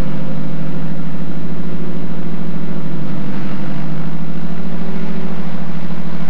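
A large engine running steadily at a constant speed, a loud, even low drone.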